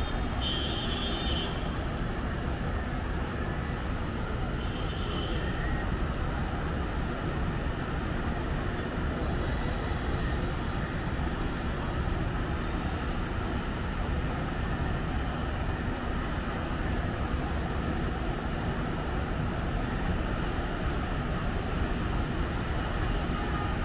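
Steady hum of city road traffic: motorbikes and cars running on a busy road, one continuous blend of engines and tyres.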